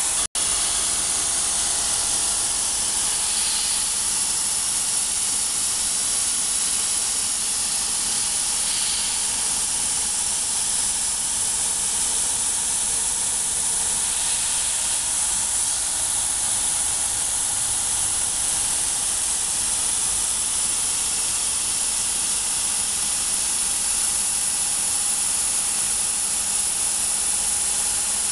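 Laser cutting machine running while it cuts 5 mm leather: a steady, even hiss of air blowing through the cutting head's air-assist nozzle and the machine's extraction.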